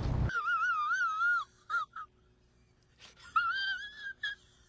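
A high-pitched, wavering wail, like a whimpering cry, heard twice: once near the start and again about three seconds in, with short squeaks between.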